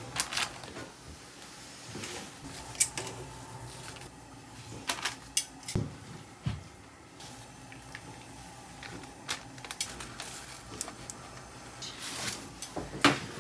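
Kitchen handling sounds: scattered clicks and light clatter of metal tongs and pots, with a duller knock about six seconds in, over a steady low background hiss.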